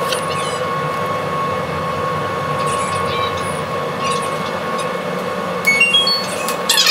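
Steady drone of the car ferry Tokiwa Maru's machinery, with faint voices, then near the end a chime of four short notes stepping upward over the ship's public-address system, the signal that an onboard announcement is about to begin.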